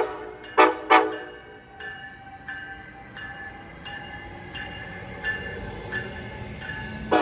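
Train horn giving two short, loud blasts about a second in, followed by fainter steady tones that change about every two-thirds of a second.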